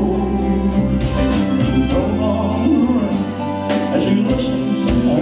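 Live band playing a slow ballad between sung lines: electric bass, drum kit with repeated cymbal hits, and keyboard.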